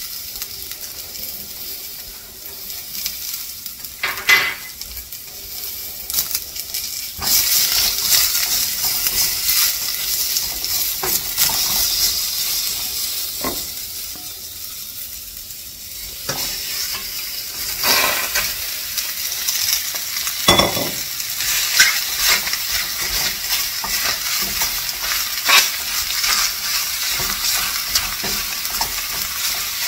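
Food sizzling in hot oil in a stainless steel saucepan on an electric coil stove. A spatula stirs and scrapes in the pan, with several sharp knocks against the metal, as chopped raw meat is tipped in and stirred.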